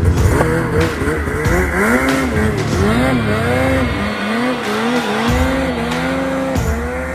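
Snowmobile engine revving up and down over and over as the throttle is worked, its pitch rising and falling repeatedly.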